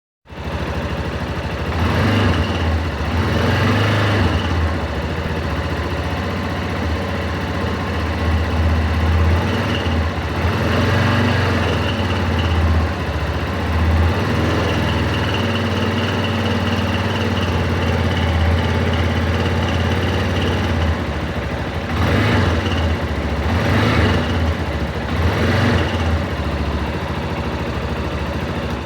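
Yamaha Ténéré 250 single-cylinder engine idling, revved briefly several times. It has the tapping 'tec, tec' noise that the owner traces to a worn cam chain tensioner: its spring has lost pressure, so the chain pushes the plunger back and it knocks.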